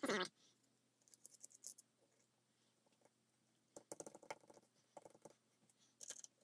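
Faint clicks and scratches of small metal and plastic parts being handled with tweezers and pressed into a Byrna HD air pistol's polymer frame, in small clusters about a second in and again from about four seconds on. A brief louder burst right at the start.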